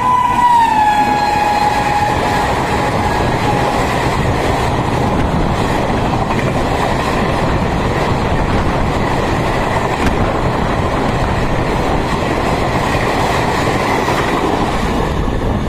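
WAP-7 electric locomotive's horn sounding as it passes at speed, its pitch dropping as it goes by and fading out within a few seconds. Then the steady, loud rush and wheel clatter of the Duranto Express coaches passing close by at high speed.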